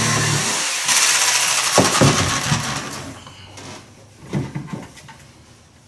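Jigsaw cutting wood, its motor stopping about half a second in, followed by a loud rasping stretch and a few knocks as the sound dies away.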